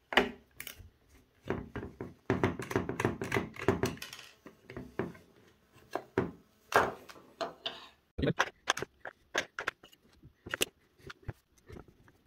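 Hard plastic clicks, knocks and scrapes as a digital multimeter's battery compartment is worked with a small screwdriver, the back cover taken off, batteries fitted and the cover pressed back in place. The clicks come in quick irregular runs, densest a couple of seconds in.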